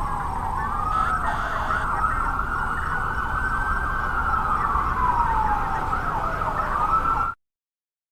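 Wailing siren sound effect, its pitch gliding slowly down, up and down again over a low rumble, cut off abruptly about seven seconds in.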